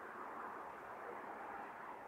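Faint, steady hum of urban background noise with no birdsong.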